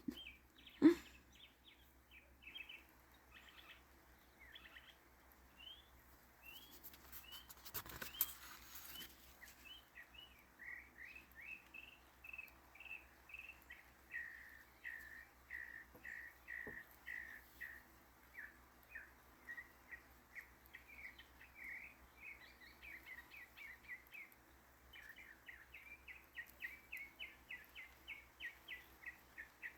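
Backyard birds chirping: a long run of short, quick chirps, thickening into a faster series near the end. A sharp click about a second in and a brief rustle around eight seconds.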